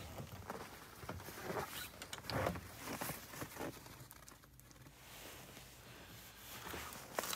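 Quiet rustling of a winter jacket and work gloves with scattered small clicks and knocks from hands working around a snowmobile's open battery compartment.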